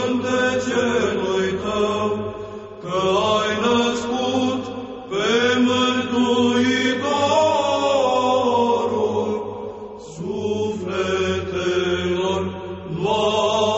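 Orthodox Byzantine chant: voices sing long, drawn-out melismatic phrases, pausing briefly between them. A steady low drone is held underneath throughout.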